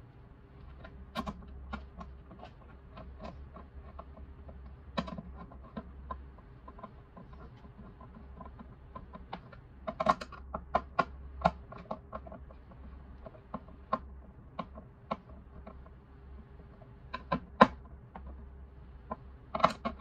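Hand screwdriver and small screws clicking and scraping against the plastic housing of a Xiaomi Mijia humidifier base as two screws are driven back in: irregular sharp clicks and taps, busiest around the middle and near the end, over a faint steady hum.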